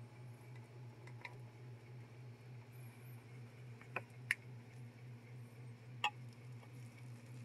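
Quiet room tone: a steady low hum with a few faint, sharp clicks, about four in all, the loudest a little past the middle.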